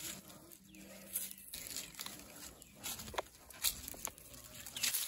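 Footsteps on a leaf-littered dirt trail, with irregular crunching and rustling of dry leaves underfoot. A faint steady low hum runs for the first second and a half.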